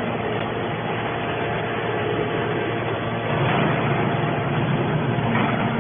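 Petrol engine of a scrap-metal baler running steadily, a little louder from about halfway through.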